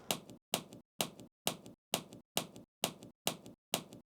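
Mechanical keyboard switches being pulled out of the hot-swap sockets of an ROG keyboard with a switch puller: a sharp click about twice a second, evenly spaced.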